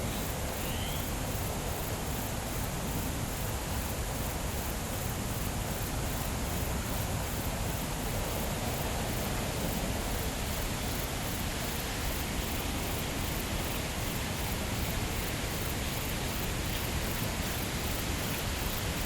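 A steady, even hiss like rain, with one faint short rising chirp about a second in.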